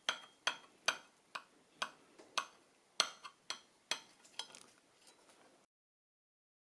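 Light, sharp clinks of a utensil against a bowl, about two a second, growing fainter and then cutting off abruptly about a second before the end.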